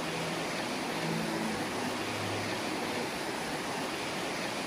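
Fast river current rushing steadily over shallow riffles.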